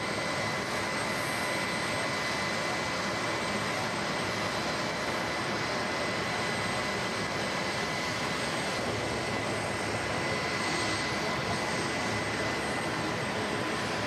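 Aircraft jet turbine running steadily: an even roar with a steady high whine over it.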